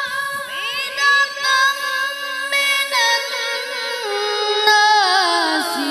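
A boy reciting the Quran in the melodic tilawah style, amplified through a microphone: long held notes with quick wavering ornaments, the line stepping down in pitch near the end.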